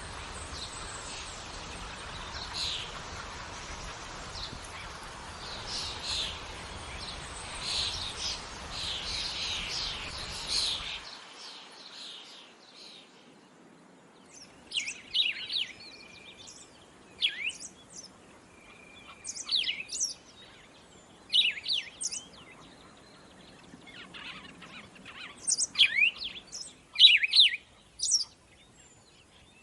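Birds chirping over a steady hiss of outdoor background noise; about 11 seconds in the hiss stops abruptly, and clear, sharp bird chirps and short whistles follow in clusters every second or two.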